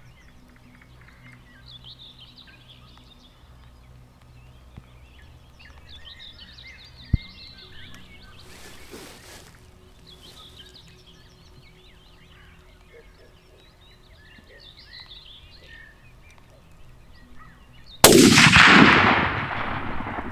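Birds singing, with a short knock about seven seconds in. Near the end comes a single loud hunting-rifle shot, which echoes and dies away over about two seconds.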